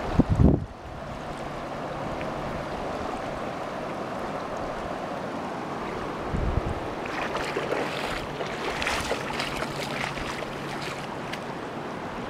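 Watauga River water rushing in a steady wash. Wind buffets the microphone at the start and again about six seconds in. Short splashy crackles come through the second half.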